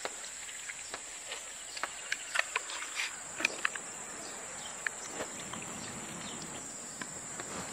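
Steady high-pitched insect chirring, like crickets, runs underneath. Over it come scattered small clicks and wet taps as oil is poured from a plastic bottle onto raw flounder and rubbed in by hand.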